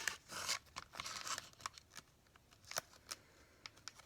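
Plastic packaging of soft-plastic fishing baits being handled and worked open: scattered small clicks and brief crinkling rustles.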